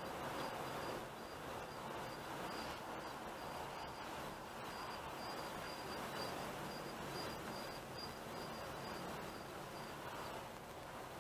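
Steady road and engine noise of a car crawling in slow city traffic, heard from inside the cabin, with a faint broken high-pitched whine over it.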